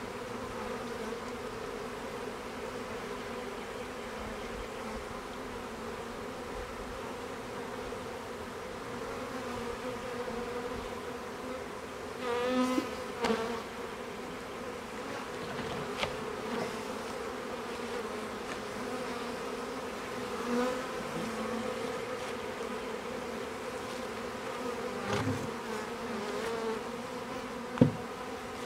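Honeybees buzzing in a steady hum around an open hive, with a few louder swelling buzzes as single bees pass close. A short sharp knock near the end.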